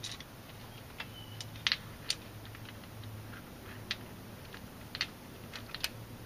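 Light, irregular metal clicks and taps as Harland Sharp aluminum roller rocker arms and their pedestal spacers are handled and lined up over the pushrods on an engine's cylinder head.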